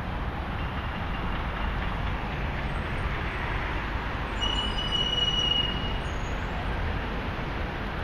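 Steady city street and construction-site noise, with a thin high-pitched squeal lasting about a second and a half near the middle.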